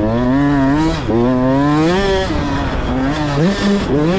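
Motocross dirt bike engine under hard acceleration: its pitch climbs, drops sharply at a gear shift about a second in and climbs again, then falls off after about two seconds as the throttle is backed off, with short throttle blips near the end.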